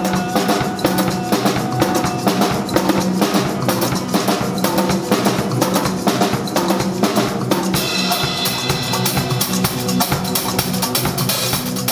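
Live drum kit playing a fast, busy groove: rapid snare hits and rimshots over bass drum, with dense strikes all the way through.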